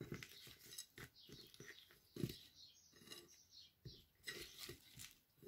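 Faint, irregular soft clicks and rustles of fingers rubbing a flour and spice coating into raw shell-on shrimp on a plate.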